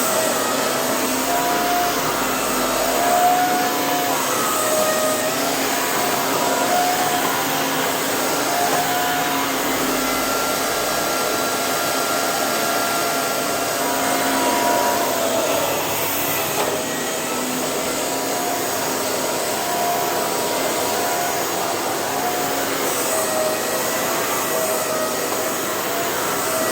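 Vacuum cleaner running steadily, its motor whine wavering slightly up and down in pitch.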